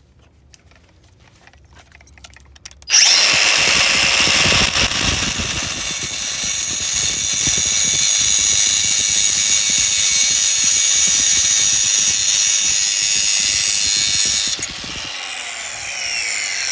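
Drill Doctor 500X drill bit sharpener switched on about three seconds in, its motor running with a high whine while a drill bit's damaged tip is ground off on the wheel. Switched off near the end, its pitch falling as the motor spins down.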